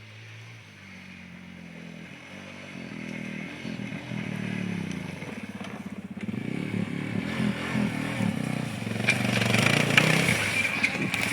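ATV engine running and growing steadily louder as the quad comes closer.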